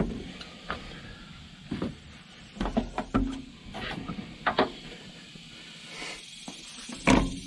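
Scattered knocks and clicks as a plastic gallon jug and small tools are set down and handled on a metal workbench.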